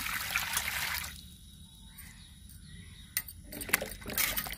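Water splashing and dripping as peeled taro roots are rinsed by hand in a metal basin. It is loudest in the first second, quieter after, with a few sharp clicks and small splashes from about three seconds in.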